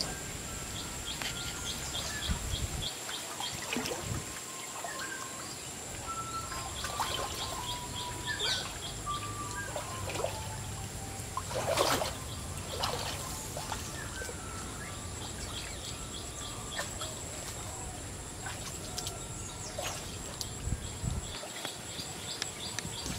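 Birds calling, with repeated short chirp trains and whistled notes, over a steady high-pitched tone and water trickling. A few splashes of someone wading through shallow water, the loudest about twelve seconds in.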